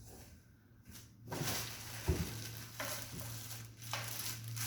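Packaging rustling as parts are lifted out of a cardboard box, with a soft thump about two seconds in.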